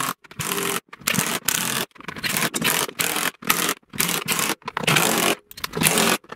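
Cordless impact driver run in a quick series of short bursts, each stopping sharply, driving in the screws that join the two halves of a washing-machine tub.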